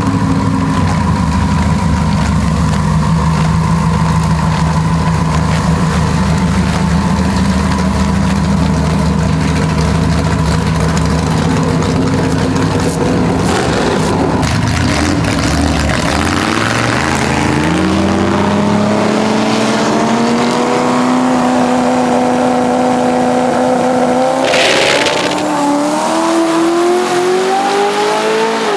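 Turbocharged drag truck's engine running steadily, then accelerating hard down the strip, its pitch climbing for several seconds, dipping briefly at a gear shift about 25 seconds in, and climbing again. The owner later puts the slow pass down to the engine running on only 8 degrees of ignition timing.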